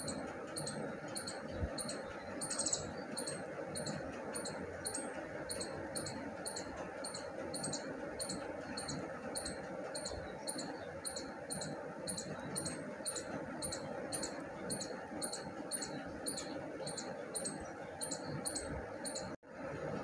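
A faint, high-pitched chirp repeating evenly about twice a second over steady background noise.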